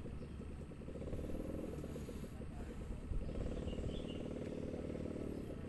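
A small engine running, a steady low pulsing that grows stronger about a second in and eases off near the end.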